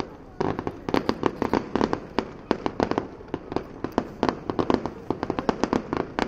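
Fireworks display going off in a rapid barrage: after a brief lull, a dense string of sharp bangs and crackling pops, many a second, starting about half a second in.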